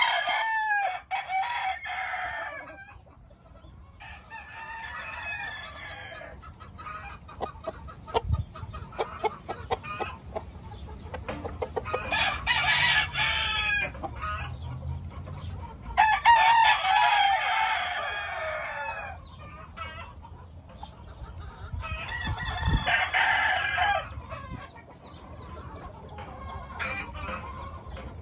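Game roosters crowing again and again, about five long crows several seconds apart, with short clucks and clicks from the birds between the crows.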